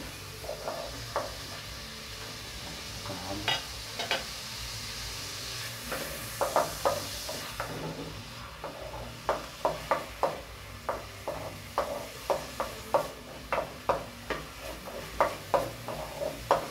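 A spoon scraping and knocking against a metal pot as chopped onion is stirred while it sautés in butter and olive oil, with a faint sizzle underneath. The strokes are scattered at first, then settle into a steady rhythm of about two a second from about nine seconds in.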